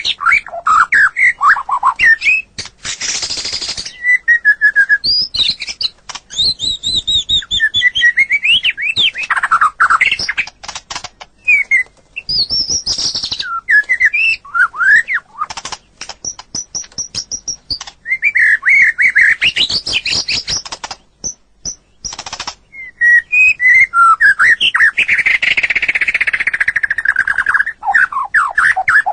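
White-rumped shama (murai batu) singing a loud, varied song of whistled notes and slurs mixed with fast runs of clicking, chattering notes, broken by a few short pauses.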